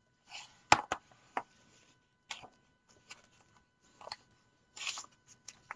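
Pages of a hardcover picture book being handled and turned: soft paper rustles and a few light taps and clicks, the sharpest just under a second in.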